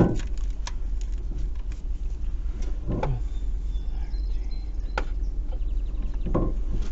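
A few scattered metallic knocks and clinks from hand tools and engine parts being handled, over a steady low rumble.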